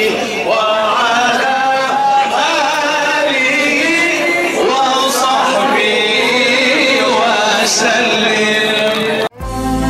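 Male voices chanting the salawat on the Prophet Muhammad in a slow, drawn-out, ornamented melody. About nine seconds in, the chant cuts off abruptly and a music track with strings and a deep bass starts.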